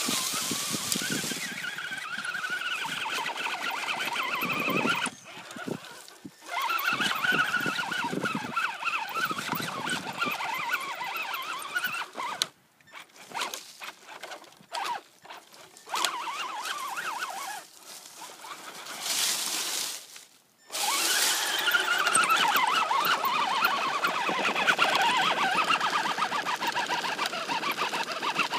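Axial Wraith RC rock crawler's electric motor and gear drivetrain whining in stop-start bursts as the throttle is worked, with several short pauses and a long, steady run near the end. The uploader finds the motor weak and slow.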